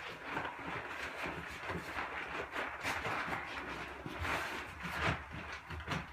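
Hands rubbing and pressing a 40 mil PVC shower pan liner flat, a soft rustling of the sheet with a few louder scuffs.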